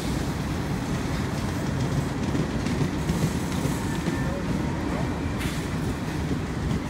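CN freight train's cars (covered hoppers and tank cars) rolling past: a steady rumble of steel wheels on the rails, with a faint click or two as wheels cross rail joints.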